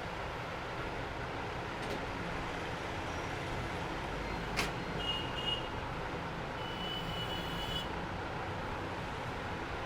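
Steady street traffic noise, with one sharp click about halfway through and then two short high-pitched beeps, the second longer than the first.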